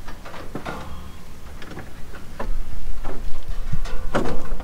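Scattered light knocks and scrapes of a cable being handled and fed along under a ute's chassis, with a low rumble coming in a little past halfway.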